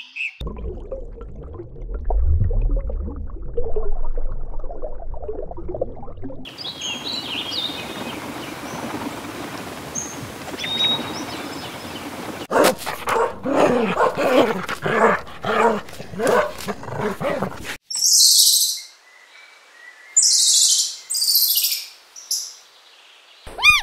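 A run of different animal sounds one after another: first low rustling, then a steady hiss, then a string of short pitched calls, then sharp high-pitched chirps in separate bursts.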